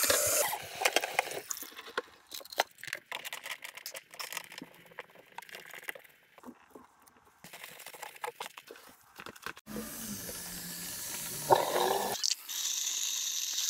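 Scattered knocks, scrapes and clicks of plastic drain pipe fittings as a sink P-trap is fitted back on by hand. Near the end, tap water runs hard into a stainless steel sink basin with a steady rush.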